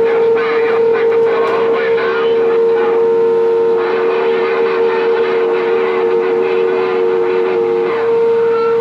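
Steady whistle-like tone coming through a Galaxy CB radio's speaker, with a second, slightly lower tone beside it that stops near the end, over faint garbled voices on the channel.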